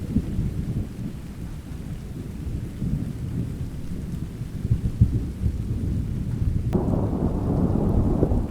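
Thunderstorm ambience: a low, rolling rumble of thunder over steady rain. About two-thirds of the way through, the rumble suddenly grows fuller and brighter, as a new peal of thunder breaks.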